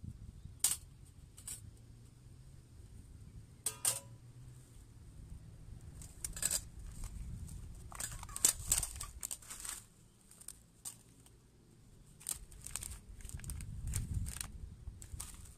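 Handling noises of camp cooking: scattered clicks, rustles and crinkles from a packet and a metal pot on a small camping stove, with a dense run of crinkling and tearing about eight seconds in. About four seconds in there is a ringing metal clink.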